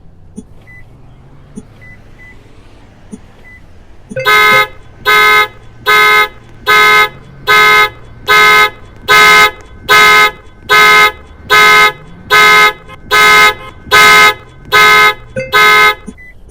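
RC car alarm's panic mode sounding a horn-like honk over and over: about fourteen evenly spaced blasts, roughly one and a quarter a second, starting about four seconds in after a few faint beeps and stopping shortly before the end.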